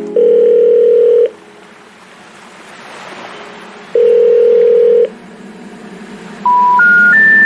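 Telephone line tones: two long beeps of a ringing tone about three seconds apart, then three short tones stepping up in pitch, the special information tone that comes before a 'number not in service' recording.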